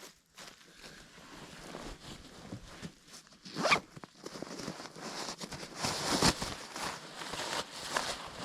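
A zipper being pulled in several quick strokes, amid handling noise; the sharpest and loudest stroke comes about halfway through.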